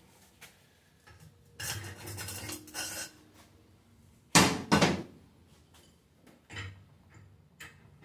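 Steel on steel at a bench vise: a Total 10-inch adjustable wrench gripping iron, levered with a long steel bar. Scraping and rattling about two seconds in, then two sharp metal clanks about four and a half seconds in, the loudest sounds, and a few lighter knocks near the end.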